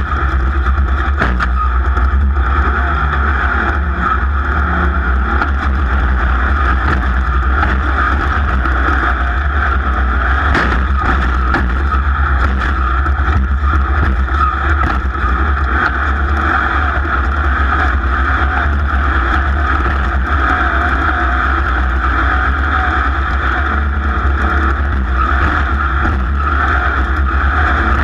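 Off-road race vehicle running at speed, a steady loud engine and rushing drone with a few sharp knocks.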